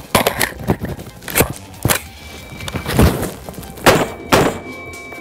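AR-15 rifle firing single shots: about eight sharp bangs at uneven spacing, the loudest two close together about four seconds in, with music underneath.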